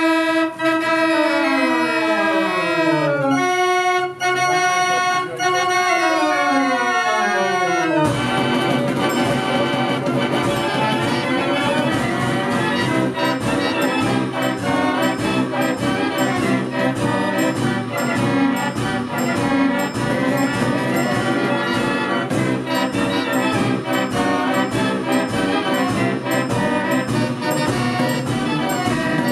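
Mechanical music playing: for about eight seconds, chiming runs of held notes step downward, then a full, organ-like mechanical band sound takes over.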